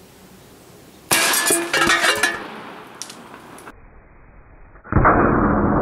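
Shot from a .457 Airforce Texan big-bore air rifle, with the slug striking a row of cast iron skillets: a sudden sharp crack with metallic clanging and clinking that fades over about a second and a half. Near the end, music with a drum beat starts.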